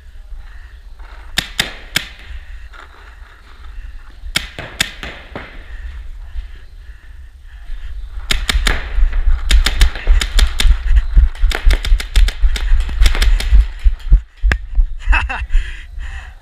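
Paintball markers firing: a few short strings of sharp pops in the first five seconds, then rapid, dense firing from about eight to fourteen seconds in. A low rumble of wind and handling noise on the microphone runs underneath.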